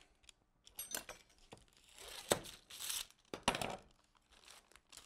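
Sheet of paper crinkling and rustling in bursts as it is pulled and folded around a rolled meatloaf on a plastic cutting board, with a couple of sharp taps about two and three and a half seconds in.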